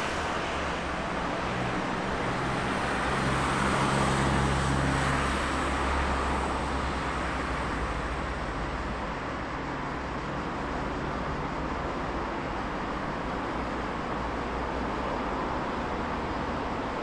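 City road traffic: a steady wash of engine and tyre noise, with a heavier vehicle's low engine rumble passing close for the first few seconds before the traffic settles to an even hum.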